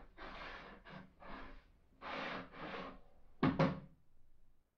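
A thin wooden strip rubbed back and forth across a table saw's top in short scraping strokes, about five of them, followed by two sharp wooden knocks close together.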